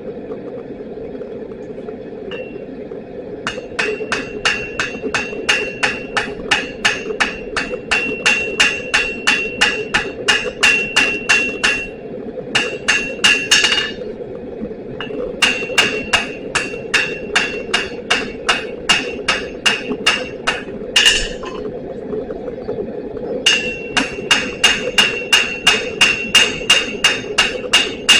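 Hand hammer striking hot steel on an anvil, each blow with a bright ring, in runs of about two to three blows a second separated by short pauses; some runs end in a quick flurry of lighter taps. A steady hum runs underneath.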